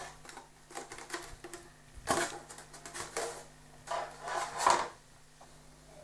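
Workbench handling sounds: light clicks and taps, then several louder rustling scrapes from about two to five seconds in, as a large foam model-aircraft wing is lifted and moved over a cutting mat.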